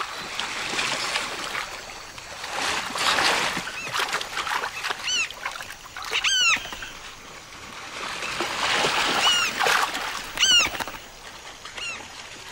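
A shoal of small fish thrashing and splashing in shallow water in two bouts, with terns giving several short, sharp calls over it, the loudest a quick pair about six seconds in and another about ten and a half seconds in.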